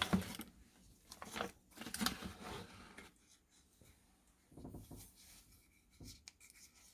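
Small plastic pudding cups being handled and turned over, giving a few short plastic clicks and rustles, most of them in the first three seconds.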